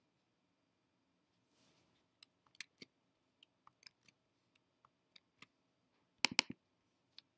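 Faint, scattered clicks of a computer mouse and keyboard, with a quick cluster of louder clicks about six seconds in.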